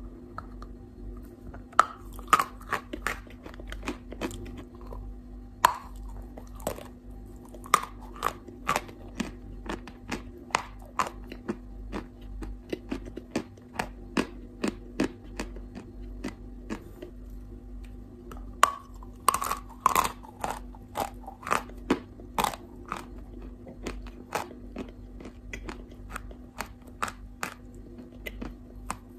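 Close-up biting and chewing of dry chalk blocks: many sharp, irregular crunches and snaps as pieces break off between the teeth, with a run of louder crunches about two-thirds of the way through. A faint steady low hum lies underneath.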